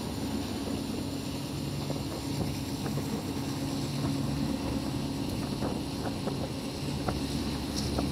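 Passenger train running, heard from an open carriage window: a steady low engine drone with the rumble of the running gear and wind on the microphone, and a few sharp clicks and knocks from the wheels on the track.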